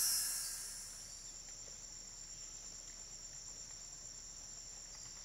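A steady, high-pitched insect chorus of nature ambience, with a high hiss fading out in the first second.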